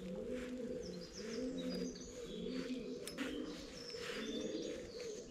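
A pigeon cooing over and over in low, arching coos, with small birds chirping higher up.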